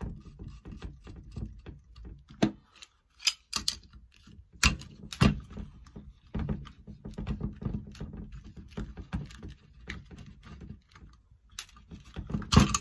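Steel cylinder studs being screwed into a motorized bike engine crankcase with locking pliers: irregular metallic clicks and clinks of the pliers' jaws and handles on the studs, with a few sharper knocks, the loudest near the end.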